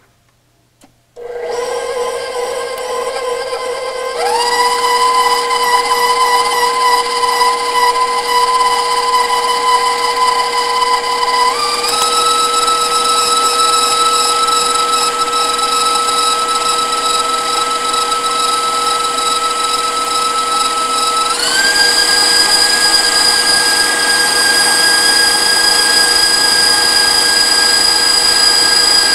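Electric mixer beating a cream cheese filling. The motor starts with a steady whine about a second in, and its speed is turned up three times, each step raising the whine to a higher pitch.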